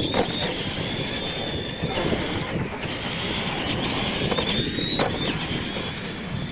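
Electric R/C monster truck running on a dirt track: a steady high motor-and-gear whine that drops out briefly twice, over the low noise of the big tyres on the dirt.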